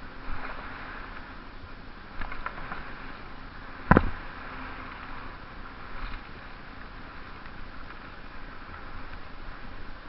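Mountain bike riding down a wet bike-park trail: steady rolling and rushing noise with short rattles, and one sharp loud knock about four seconds in.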